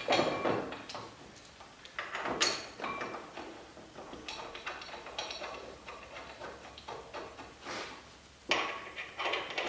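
Scattered knocks and clinks of metal brake parts and tools being handled during a disc brake caliper installation, with a few sharper knocks near the start, about two and a half seconds in, and a cluster near the end.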